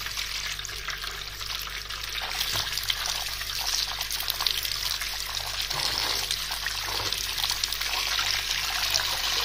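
Tap water running in a steady stream and splashing onto vegetables in a plastic colander as a hand rubs and turns them, with a few small knocks of the produce.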